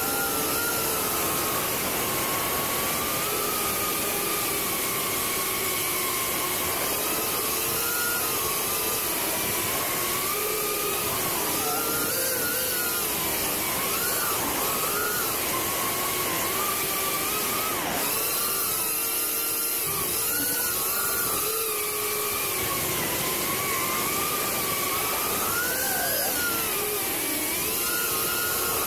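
Ducted FPV cinewhoop drone's electric motors and propellers whining, picked up by the camera mounted on the drone. The pitch wavers up and down continuously as the throttle changes, over a steady airy hiss.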